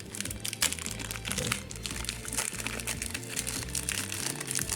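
Foil wrapper of a Pokémon booster pack crinkling as it is handled and opened, with many short crackles, over background music.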